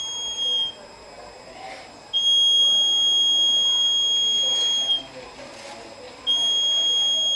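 Piezo buzzer of a homemade water level indicator sounding a steady high-pitched tone in spells. It cuts off just after the start, sounds again for about three seconds and comes back near the end. It sounds whenever the probe wires touch the water and complete the circuit.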